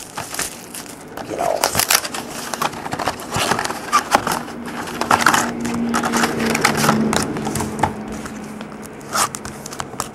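Clear plastic shrink wrap and a foil-wrapped trading-card pack being handled, crinkling and crackling with scattered clicks and rustles. A faint low hum runs through the middle of it.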